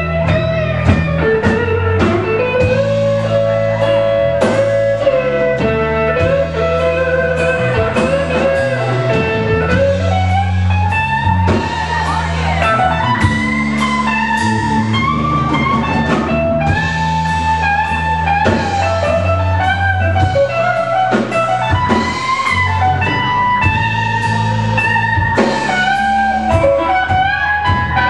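Live blues band playing an instrumental passage: a lead electric guitar plays a solo full of bent notes over bass guitar and drums.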